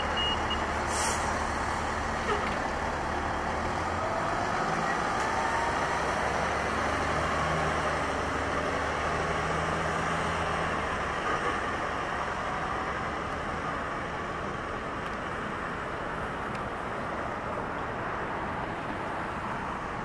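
Steady road traffic noise from passing vehicles, with a low engine hum that drops away about halfway through.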